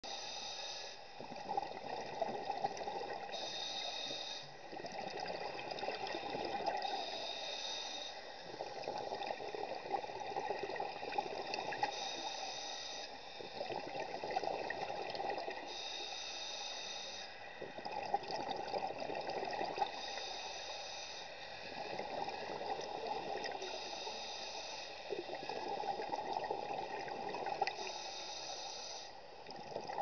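Scuba diver breathing through a regulator underwater: a short hiss on each inhale, then a longer rush of exhaled bubbles, about one breath every four seconds.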